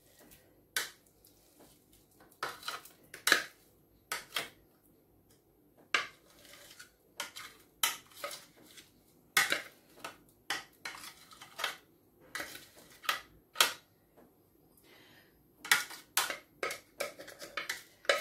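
Blended frozen fruit being scooped out of a blender jug into a glass bowl, with a utensil knocking and scraping against the jug and bowl. The clicks and knocks are irregular, about one a second, and come faster near the end.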